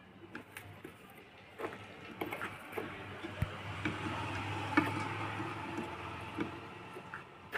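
Small clicks and taps of tools working on a circuit board as gate resistors are desoldered. A steady hiss builds through the middle, with a low hum for a couple of seconds, and a sharper click comes near the end.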